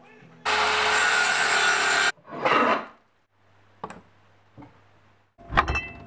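Wooden hand plane shaving a board: one long, even stroke and then a shorter one. A few knocks of tools set down on a wooden workbench follow near the end.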